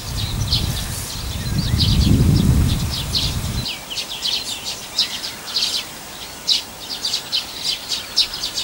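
Small songbirds chirping in many short, quick, high calls. Under them, for the first three and a half seconds, a low rumble runs, then cuts off suddenly.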